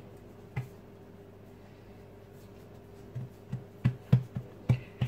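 Hands patting and pressing a block of folded puff pastry dough on a worktop to square its sides: one soft thump about half a second in, then a run of dull thumps, about three a second, in the second half.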